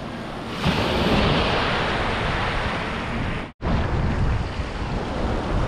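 Wind buffeting an action-camera microphone over small waves washing against shore rocks and sand. The noise gets louder about half a second in and cuts out for an instant about three and a half seconds in.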